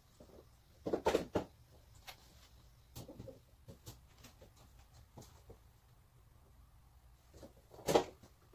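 Light knocks, clicks and rustles of a tail light and its wiring being handled and fitted against a car's rear body. A cluster of knocks comes about a second in, a few softer ones around three seconds, and the loudest single knock near the end.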